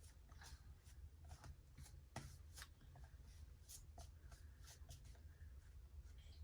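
Near silence: faint, irregular small clicks and rustles over a low steady hum.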